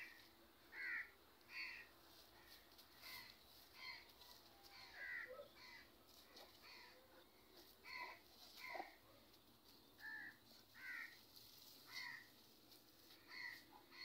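Birds calling faintly: a steady run of short, harsh calls, about one a second.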